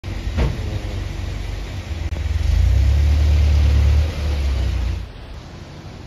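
Road traffic rumble from a vehicle passing on the street. It builds to its loudest around the middle, then drops away abruptly about five seconds in.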